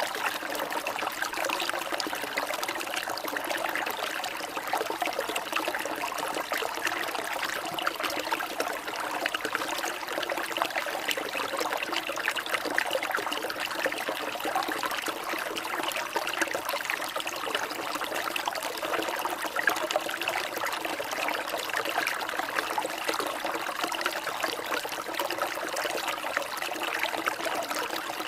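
Water trickling and splashing steadily, a constant bright babble with many tiny crackles and no pauses.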